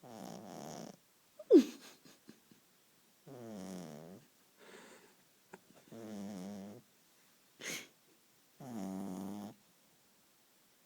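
Beagle snoring in its sleep: a snore under a second long about every two and a half to three seconds, with a fainter one between. About a second and a half in comes a short, loud squeak falling in pitch.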